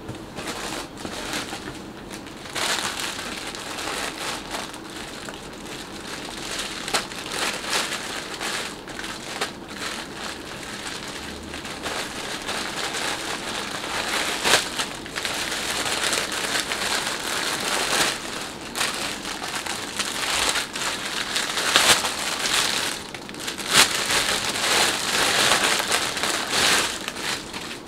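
Clear plastic bag crinkling and rustling as it is handled and pulled off a cap, with many sharp crackles, getting louder a couple of seconds in.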